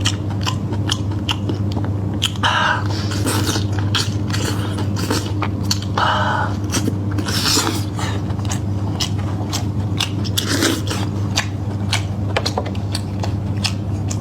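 Close-up eating sounds of a person chewing and biting meat: repeated wet mouth clicks about three times a second, with a few longer smacking chews. A steady low hum runs underneath.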